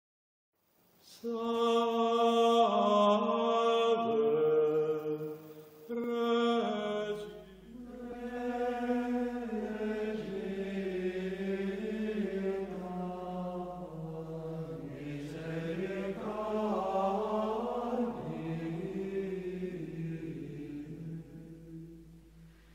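Choral chant sung as a soundtrack, slow phrases of long held notes that move in small steps. It starts about a second in, breaks off briefly, and fades away near the end.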